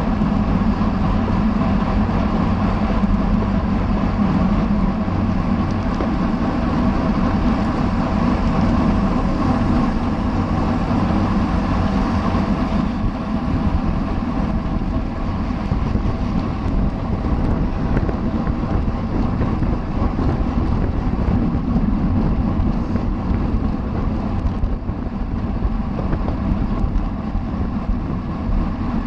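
Wind rushing over the microphone of a cyclist racing in a criterium, with a steady hum from the bike's tyres and drivetrain running underneath.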